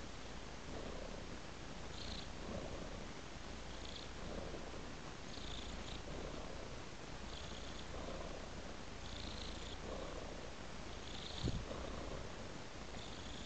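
Domestic tabby-and-white cat purring steadily, the purr swelling and easing about once a second. One brief thump near the end.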